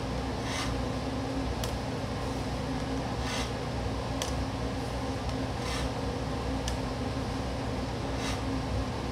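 A knife slicing through rolled cinnamon dough on a wooden board gives a soft scrape about every two and a half seconds, with a few light sharp clicks in between. A steady mechanical hum like a ventilation fan runs underneath.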